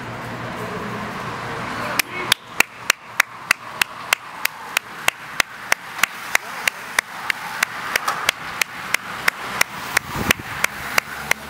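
Rapid, evenly spaced sharp knocks, about three or four a second, starting about two seconds in after a steady hiss.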